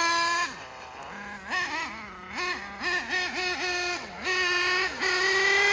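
HPI Savage XL nitro RC monster truck's engine revving in repeated short bursts: the pitch jumps up to the same high note and falls back each time the throttle is let off. Its three-speed transmission is stuck in one gear, so the revs climb to the same top note without any shift.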